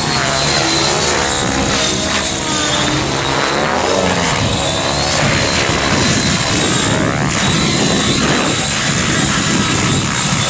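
Align T-Rex 700E DFC electric RC helicopter with an 800MX motor flying aerobatics: a steady high motor whine over rotor-blade noise, with sweeping rises and falls as the helicopter passes close.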